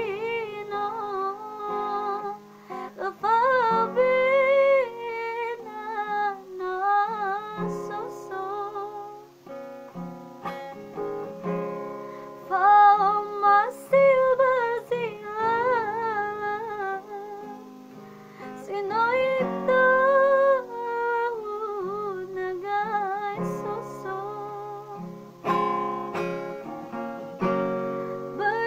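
A woman singing with a wavering vibrato over a guitar accompaniment.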